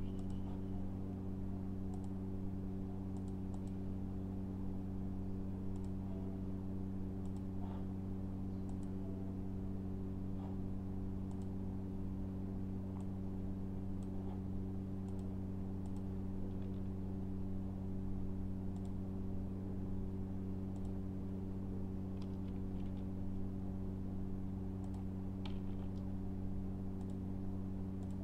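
Sparse computer keyboard typing and mouse clicks, faint and irregular, over a steady low electrical hum.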